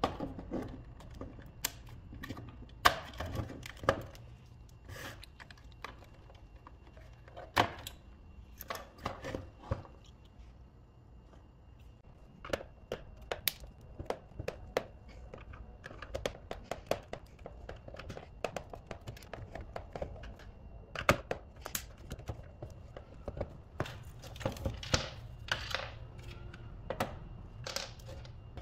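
Irregular clicks, taps and knocks of a plastic alarm clock case being taken apart by hand with a screwdriver: screws turning out, plastic parts clicking and snapping as the case is pried open, and pieces set down on a wooden bench.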